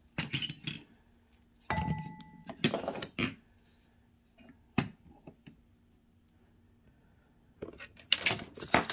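Thin black metal stand parts clinking and knocking together as the pieces are fitted, in several short bursts with a quiet stretch between. One knock about two seconds in leaves a short metallic ring.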